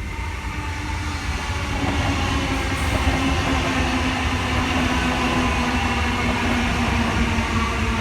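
NSW TrainLink H-set (OSCAR) electric multiple unit moving past along the platform. It grows louder over the first two seconds, then runs on with a steady hum over rolling rumble.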